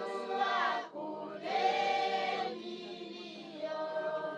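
A choir of voices singing together in sustained phrases. The loudest phrase comes about a second and a half in, and softer held notes follow.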